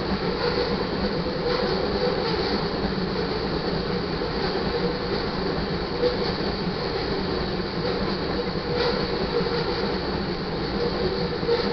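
Loaded crude oil tank cars of a freight train rolling past on steel rails: a steady rumble with occasional wheel clicks and a thin high ring from the wheels.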